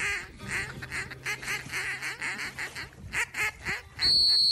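Ducks quacking in a rapid run of calls, about four a second. About four seconds in, the quacking gives way to a loud, steady, high-pitched whistle blast.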